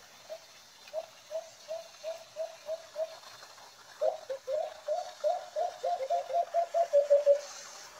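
White-eared brown dove (alimokon) calling: a series of short hooting coos about three a second, then after a brief pause a faster, louder run of coos that ends in a longer drawn-out note.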